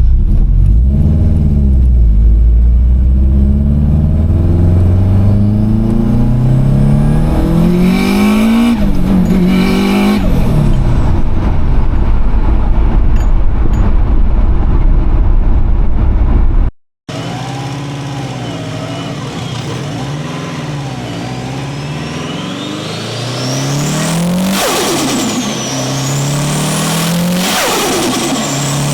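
Subaru WRX turbocharged flat-four engine accelerating hard, its pitch rising again and again as it pulls through the gears, with a break partway through. With no blow-off valve and a narrowed 3-inch intake pipe, the turbo flutters on each lift-off between gears.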